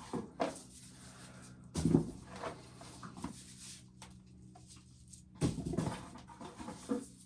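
Corn being shelled by hand: a handful of short, scattered rustles and knocks as kernels are worked off the cob, over a steady low hum.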